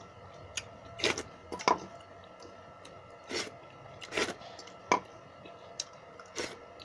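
Someone eating watery curd rice by hand from a steel bowl: about half a dozen short, sharp wet eating sounds of fingers working the soaked rice and chewing, spaced a second or so apart, over a faint steady hum.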